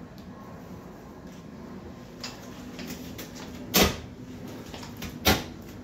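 Two sharp knocks about a second and a half apart, with a few lighter clicks just before them: hard objects being set down or knocked together.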